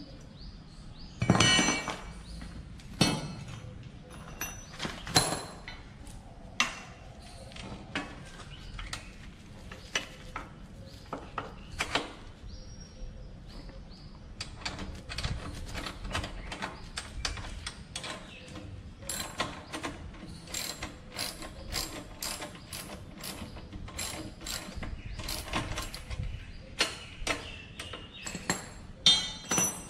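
Spanner work on the bolts of a metal pannier bracket being fitted to a motorcycle's rear frame: a run of rapid metallic clicking through much of the middle, with a few louder clanks of metal on metal in the first few seconds and near the end.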